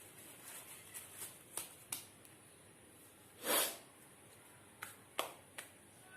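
A woman sniffing sharply through her nose once, about three and a half seconds in, her nose watering from trying to provoke a sneeze. A few light clicks and taps come before and after it.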